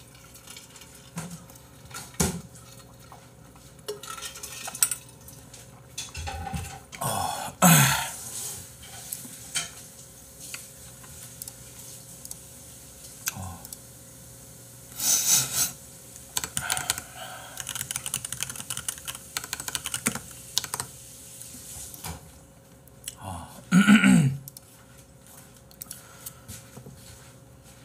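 Scattered clinks and clatter of tableware and utensils mixed with bursts of computer keyboard typing, with two louder sounds about eight seconds in and a few seconds before the end.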